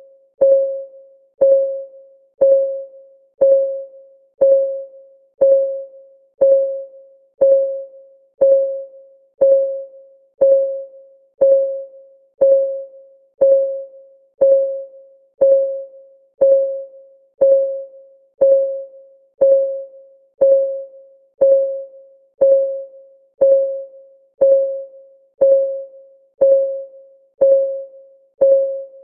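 Clock ticking sound effect for a countdown timer: a short, sharp tick with a brief ringing tone, repeating steadily once a second.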